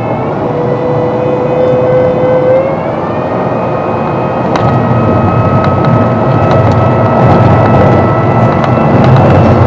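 Honda Civic engine and road noise heard from inside the cabin as the car accelerates, the engine note climbing a little about three seconds in. A deeper rumble swells and grows louder through the second half.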